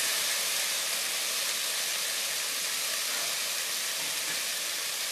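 Steamed sheem (hyacinth beans) frying in a little oil in a kadai over lowered gas: a steady sizzling hiss.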